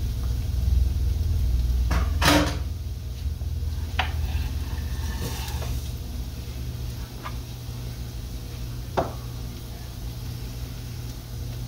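Kitchen clatter: a few sharp knocks and clinks as a plate and a glass blender jar are handled and set down on the counter, the loudest about two seconds in with a short ring, over a low steady hum.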